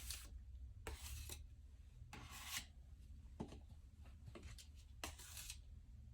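Hand tool scraping across a drywall patch in four short strokes, with a longer pause before the last one, as the joint compound is worked and feathered.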